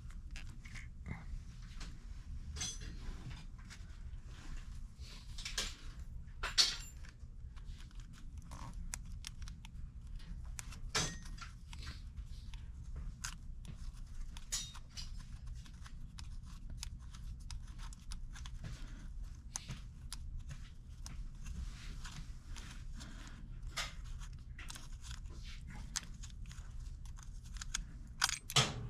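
Hand tools working on the intake manifold bolts of a Ford flathead V8: scattered small clicks and scrapes of a wrench on the bolts, with a few sharper metallic clicks, over a steady low hum.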